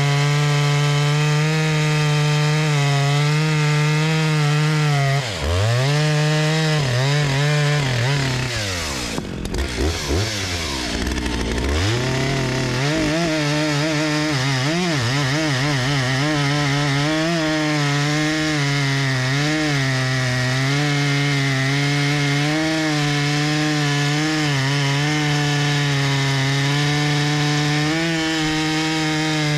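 Stihl MS 881 Magnum's 122 cc two-stroke chainsaw engine at full throttle, cutting through a large red oak log in one of the break-in cuts on the new saw. About five seconds in the revs drop sharply, bottom out around ten seconds, then climb back and hold steady with a slight waver as the bar works through the wood.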